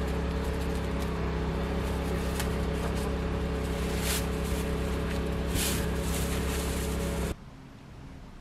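Cling film pulled and cut on a tabletop plastic-wrap machine, with two short rips of film about four and five and a half seconds in, over a steady low mechanical hum. The sound drops away abruptly near the end.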